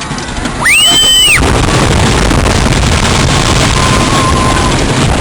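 A high-pitched scream that rises, holds and falls about a second in, then the loud, steady rumble and rush of the Lightning Racer wooden roller coaster running on its track.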